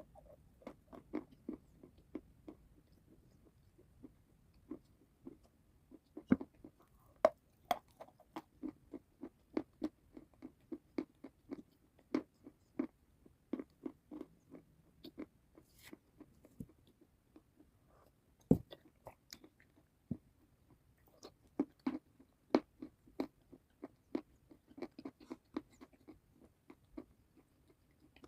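Close-miked chewing and biting of crunchy food: a run of crisp crunches at about two to three a second, with a few louder bites in between.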